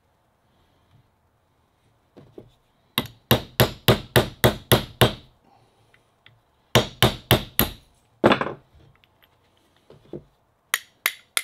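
Hammer striking a bolt held as a punch against the shaft of a Sherwood G65 raw water pump, knocking the shaft loose to drive the seal and bearings out the back of the pump. Sharp metal-on-metal blows come in quick runs of about four a second: a run of about eight, a pause, about five more, a single blow, then another run near the end.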